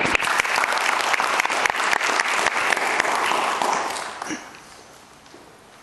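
A small audience clapping, dying away after about four seconds.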